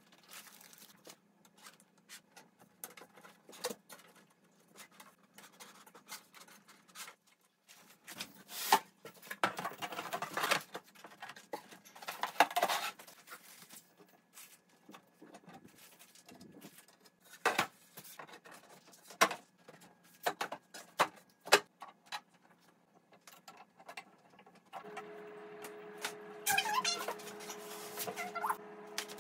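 Flat-pack particleboard desk panels and their metal hardware being handled and fitted: scattered knocks, taps and clicks with stretches of scraping and rustling. A low steady hum comes in near the end.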